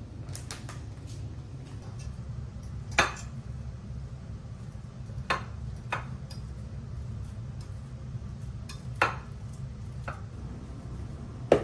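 Scattered sharp clinks of kitchen utensils against glass and ceramic bowls while ingredients are mixed by hand, about ten in all, with a few louder knocks. A low steady hum runs underneath.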